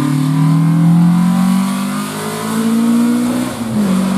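Rally car engine accelerating hard, its pitch rising steadily for about three seconds, then dropping abruptly and settling at a steady lower pitch near the end.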